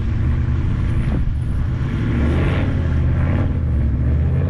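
Four-wheel-drive ute's engine running steadily under load as it drives through soft sand, a low drone with a hiss of tyres and sand over it that swells about halfway through.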